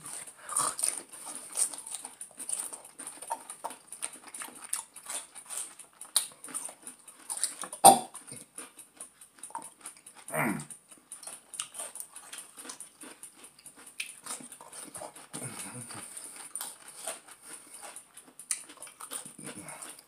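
People crunching and chewing whole pickles as fast as they can, close to the microphone: a dense, irregular run of wet crunches and mouth clicks, with a short falling vocal moan about ten seconds in.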